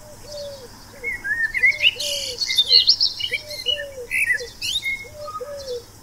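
Birdsong: several birds chirping and trilling in quick high notes, over a lower call repeated in short groups of three.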